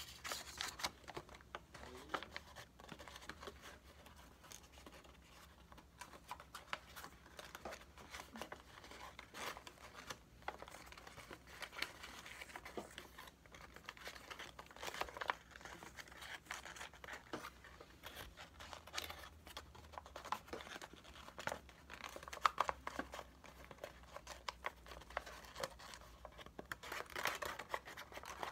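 A sheet of white paper rustling and crinkling as it is folded and creased by hand, in scattered short crackles.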